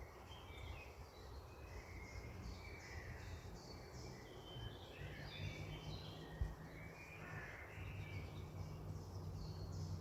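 Several wild birds chirping and calling at once, many short overlapping high calls with no single song standing out. A low steady hum runs underneath, and a single brief knock sounds about two-thirds of the way through.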